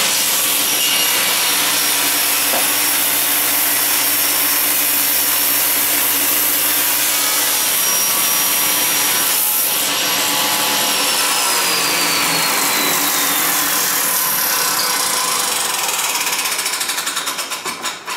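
Table saw with an 80-tooth carbide non-ferrous blade cutting through a thick solid aluminum bar, a loud steady cutting noise. After about ten seconds a falling whine comes in and the pitch drops as the saw winds down. The sound wobbles and fades near the end.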